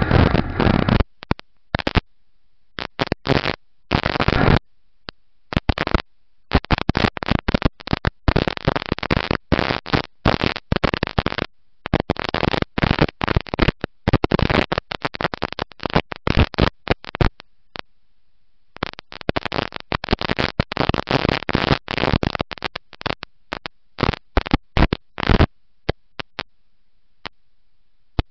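Loud, distorted rushing noise picked up by an onboard camera in a dirt-track race car at speed, with no clear engine note. It cuts in and out in choppy bursts with frequent short dropouts, and falls away near the end.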